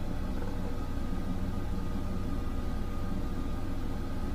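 Steady low hum with an even hiss over it: the room's background noise, unchanging throughout.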